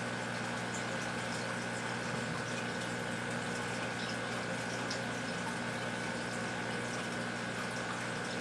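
Aquarium filter pump running steadily: a constant rush of moving water with a low hum and a faint high steady tone.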